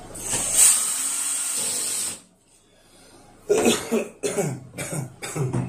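A steady hissing noise for about two seconds, then after a brief pause a man coughing and clearing his throat in a run of short, irregular bursts.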